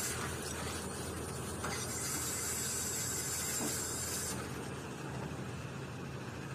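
Excavator-mounted vibratory sheet-pile driver running: a steady mechanical noise with a low hum and a high hiss, and the hiss drops away about four seconds in.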